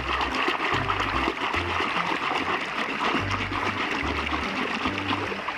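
River water running and trickling, over background music with a low bass line that shifts every half second or so.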